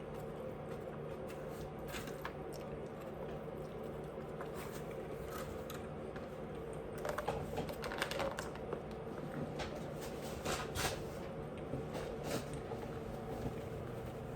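Eating at close range: scattered small clicks and smacks of chewing and utensils, bunched more densely in the second half, over a steady background hum.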